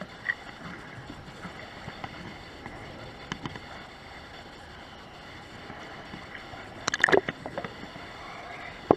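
Underwater ambience on a scuba dive: a steady hiss with scattered faint clicks. About seven seconds in comes a brief cluster of loud crackles, and a single sharp click near the end.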